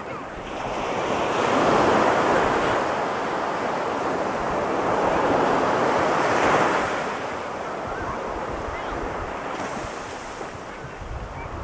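Ocean surf breaking and washing up a sandy beach, swelling about a second in and surging again around six seconds before easing off.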